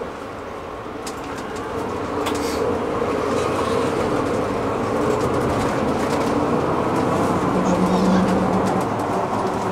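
City bus running, heard from inside the cabin: a steady engine and road hum that grows louder over the first three seconds and then holds, with a few light clicks.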